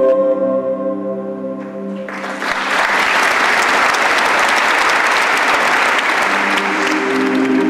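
A held chord of music ends about two seconds in, and an audience then applauds steadily. New music comes in right at the end.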